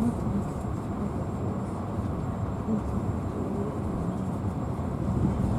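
Passenger train under way, heard from inside the carriage: a steady low rumble of the wheels on the track.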